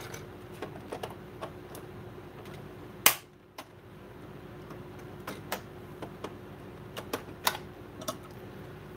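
Hard plastic clicks and knocks from the shell and small parts of a Nerf blaster being handled and pulled apart on a workbench, with one sharp, loud knock about three seconds in and scattered lighter clicks after it.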